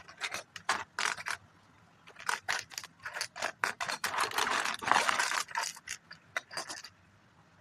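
Opening a Lego set's packaging: a string of short scrapes, crackles and clicks, thickening into a denser rustle a little past the middle.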